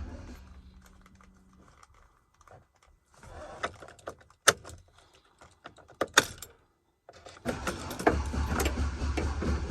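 Chevrolet Silverado engine shutting off, then a few seconds of key jingling and sharp clicks, two of them loud. About seven and a half seconds in the engine cranks on a nearly dead battery, catches and runs again.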